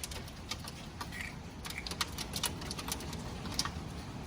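Hailstones with rain striking hard surfaces: irregular sharp ticks and clacks over a steady patter.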